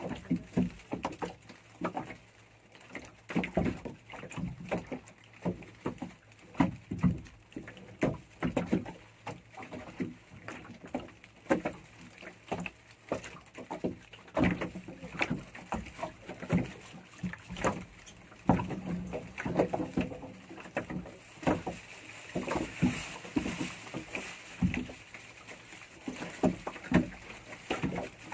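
Water slapping and knocking irregularly against the hull of a small fishing boat as it rocks on the sea, several slaps a second, with a short rushing hiss about two-thirds through.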